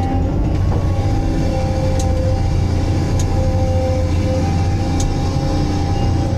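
Steady low drone of a Multidocker material handler's power unit and hydraulics, heard from inside its cab as the grapple is lowered onto stacked pulpwood. A few faint light clicks come about two, three and five seconds in.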